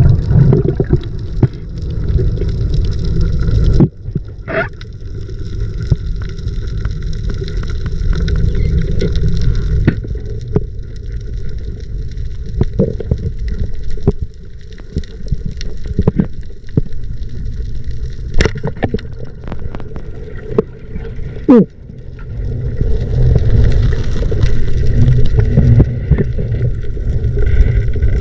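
Muffled water rumble and sloshing on a camera in the sea during a spearfishing dive, with scattered sharp clicks; the sound changes abruptly about four seconds in and again near the end.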